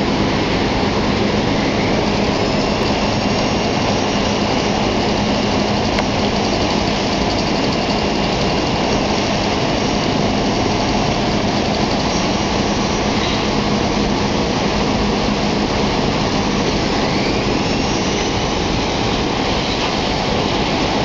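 Wide sheeter-and-cutter machine running, feeding sheet material: a loud, steady mechanical drone with a constant low hum, and a faint rising whine twice.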